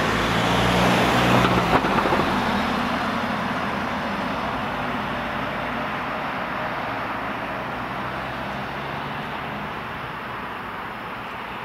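Fire engine's diesel engine and tyres on the road as it drives away, the engine note plain for the first two seconds, then a rushing noise that steadily fades into the distance.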